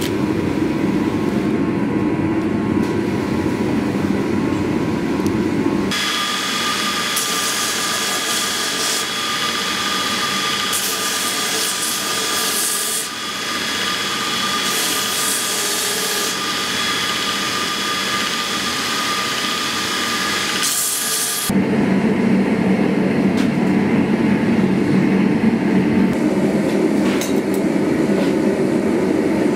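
A steady low roar, then from about six seconds in a belt grinder running with a steady whine while a steel sword guard is pressed against the belt in several passes, each adding a grinding hiss. The grinder stops suddenly at about twenty-one seconds and the low roar returns, a little louder.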